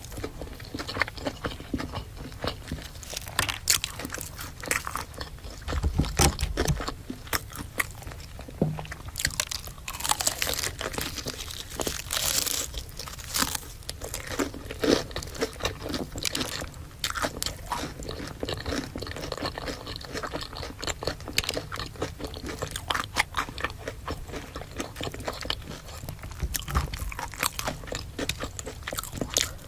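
Close-miked eating sounds: a person biting and chewing food, with many quick, irregular crackles and clicks throughout.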